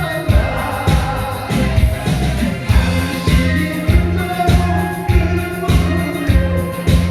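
Gogo janggu performance: upbeat song with singing over a steady driving beat of about two strong hits a second, with janggu drums played along.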